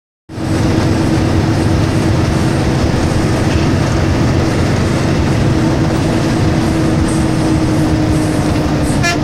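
Bus running on the road, a loud steady rumble with a steady drone. Right at the end, the first notes of a multi-tone telolet horn tune begin.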